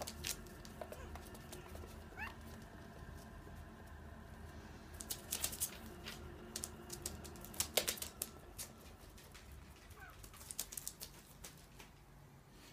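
Light scattered clicks and taps of small animals' paws and claws on a tiled floor and loose newspaper, as Chihuahua puppies scamper around a rabbit, a flurry of taps about five to six seconds in, with a few faint short squeaks.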